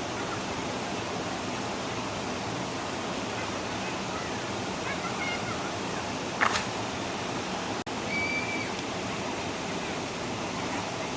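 Steady rushing of stream water, with one sharp knock about six and a half seconds in and a few short high chirps.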